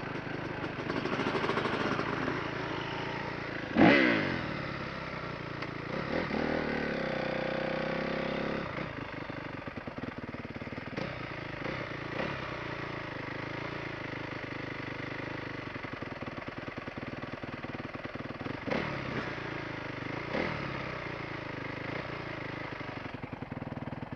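A Honda dirt bike's engine being ridden on a dirt track. It revs hard about four seconds in, holds a steady pitch for a couple of seconds around six to eight seconds, then runs lower with short throttle blips near the end.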